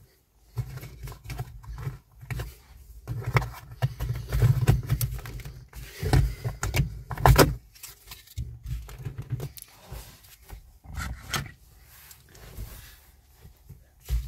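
Hard plastic trim parts around the car's rear-view mirror being handled: irregular clicks, knocks and rattles, with rumbling handling noise on a hand-held phone's microphone.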